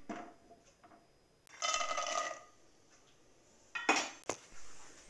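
Metal spoon scraping and knocking against a steel cooking pot of rice in a few separate bursts, one about two seconds in ringing with a metallic tone.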